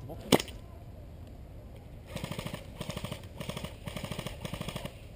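Airsoft guns firing: one sharp crack just after the start, then four short bursts of rapid full-auto fire, each under a second, from about two seconds in.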